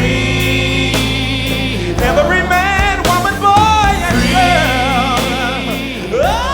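Background music: a slow song with voices holding long, wavering notes over steady instrumental accompaniment, and a voice sliding upward near the end.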